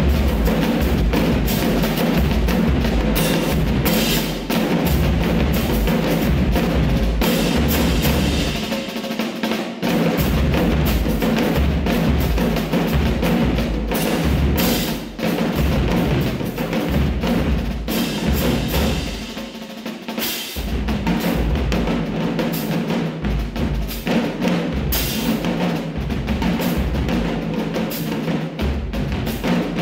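Marching drumline playing a cadence: snare drum, crash cymbals and marching bass drums. The bass drums drop out briefly about nine seconds in and again about nineteen seconds in.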